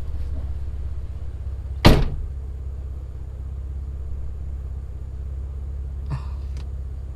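Jeep Wrangler JK engine idling with a steady low rumble, and one sharp, loud thump about two seconds in, with a smaller knock near the end.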